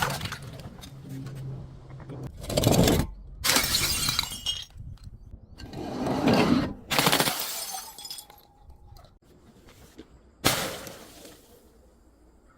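Glass bottles shattering and crunching as they are crushed: about five separate smashes a second or several apart, the last a little over ten seconds in.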